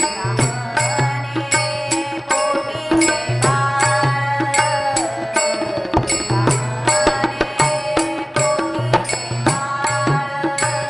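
Women singing a Marathi devotional bhajan, with small hand cymbals (tal) struck in a steady beat about three times a second and a harmonium underneath.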